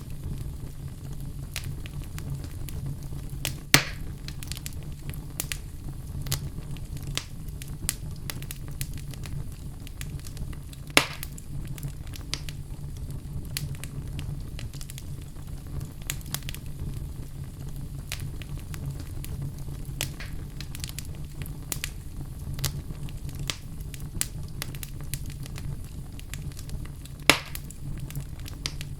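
Fireplace fire burning with a steady low rumble and frequent small crackles, and three louder pops at about 4, 11 and 27 seconds.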